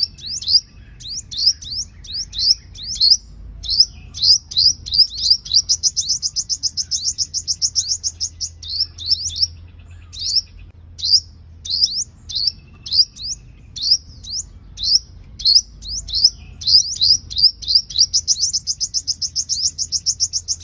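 Sunbird singing: a string of sharp, high, rising chirps, a few each second, twice speeding up into a fast trill, about a third of the way in and near the end. A faint low hum runs underneath.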